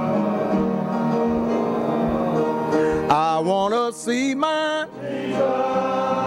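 Background music: a song with sustained chords and a sung vocal that breaks into a wavering run about three seconds in.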